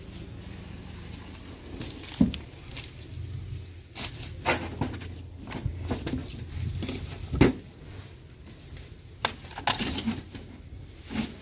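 Household items being rummaged through by hand: woven baskets and a plastic bucket shifted and knocked together, giving irregular clicks, knocks and rustles over a low rumble.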